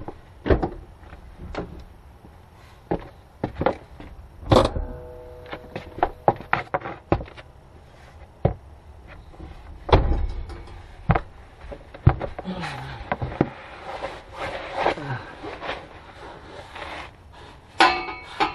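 Irregular knocks and clunks with a few brief squeaks as the car's emergency brake is set, with the door opened and shut. Near the end, quick clicks of a hand ratchet on the driveshaft bolts.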